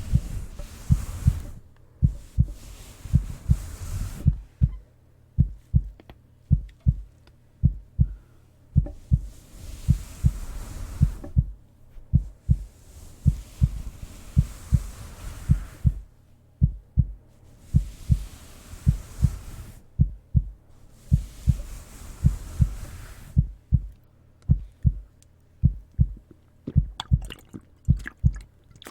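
Heartbeat: steady low double thumps (lub-dub) repeating evenly throughout. A soft rushing hiss rises and falls in stretches of a few seconds over it, and a few faint clicks come near the end.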